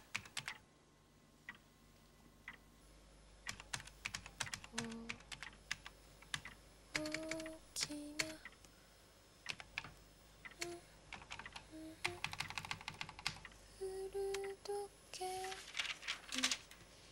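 Typing on a keyboard: irregular runs of sharp key clicks with short pauses between them. Mixed with the clicks, from about five seconds in, comes a string of short held notes that step up and down in pitch.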